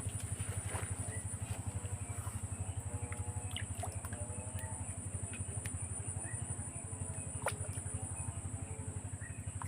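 Small boat engine running with a fast, even low chug, with two short wavering pitched calls heard over it.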